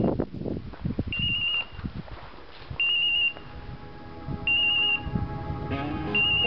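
Hunting-dog beeper collar sounding in point mode: a short, high beep about every second and a half, the sign of the English setter standing on point. Footsteps and rustling in the grass early on, and background music comes in about halfway.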